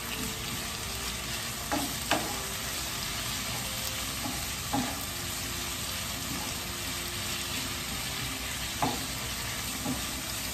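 Swiss chard sizzling in olive oil in a frying pan, stirred with a wooden spoon: a steady sizzle with a few short knocks of the spoon against the pan.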